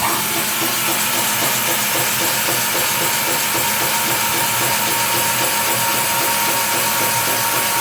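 Gear-reduction motors of a Hofer case clamp running steadily as the beams move, stopping right at the end, under a loud steady hiss of compressed air leaking from the clamp's air fittings.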